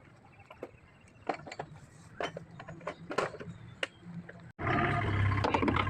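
Scattered metal clinks and knocks of tools and parts being handled during mechanical repair work. After an abrupt cut about four and a half seconds in, a machine is running steadily and much louder.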